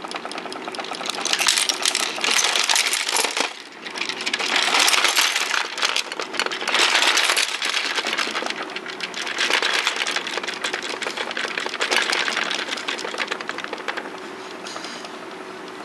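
Small plastic toy-shop miniatures and furniture rattling and clattering as the playset shakes in an earthquake, pieces tipping over and knocking together. The clatter comes in several louder surges and dies down near the end.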